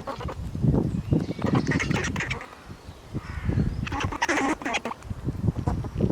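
Squirrel giving short, duck-like barking calls in irregular bunches, over low thuds.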